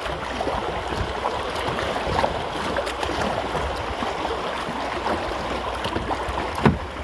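Choppy river current rushing around a plastic kayak, with the splashes of double-bladed paddle strokes and a sharp knock near the end.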